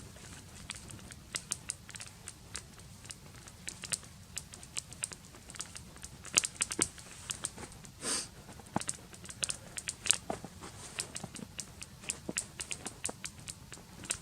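Newly lit wood campfire crackling, with irregular sharp pops and snaps.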